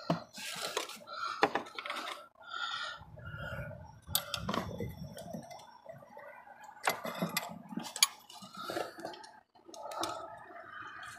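Scattered metallic clicks and clinks of hands and a tool working fuel-line fittings on a diesel engine's fuel filter head.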